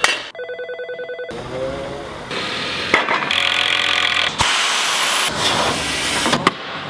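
Quick succession of different woodworking machines and tools cutting and working wood in a kitchen-cabinet workshop, each sound cut off abruptly as the next begins. It opens with a pulsing pitched machine buzz.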